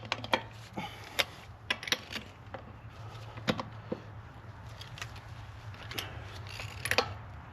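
Scattered metallic clicks and clinks of a hand ratchet and chrome socket working on a truck's wheel lug nuts, loosening them by hand without an impact gun.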